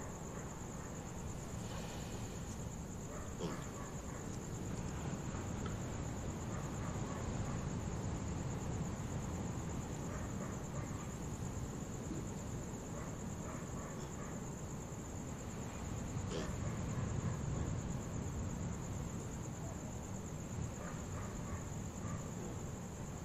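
Night chorus of crickets: a steady, high-pitched trill that never lets up. Underneath it runs a low, steady rumble of distant ocean surf, with a few faint, brief animal calls now and then.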